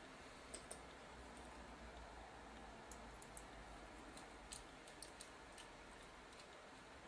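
Near silence broken by a dozen or so faint, light clicks, scattered irregularly: a small screwdriver and tiny screws on the metal chassis of a JVC GY-HD251 camcorder's tape deck as the screws are undone.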